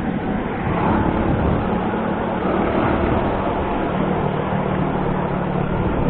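Suzuki Shogun Pro 125 single-cylinder four-stroke motorcycle engine running steadily under way, with a steady low hum under a thick layer of road noise.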